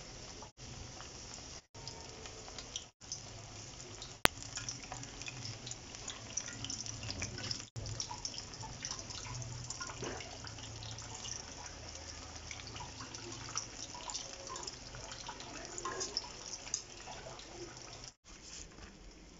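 Battered potato-slice pakoras deep-frying in hot oil in a wok: a steady crackling sizzle, broken by a few brief silent gaps, with one sharp click about four seconds in.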